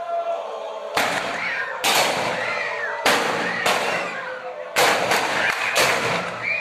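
A string of loud, echoing bangs, roughly one a second, with whoops and shouts from a crowd between them.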